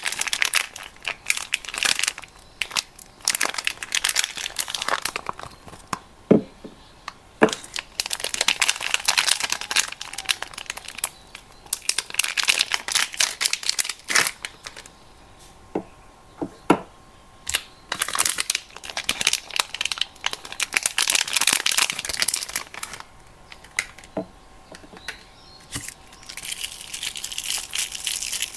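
Soap wrappers being crinkled and torn open in repeated spells of a few seconds each, with a few sharp clicks in between as the bars are unpacked by hand.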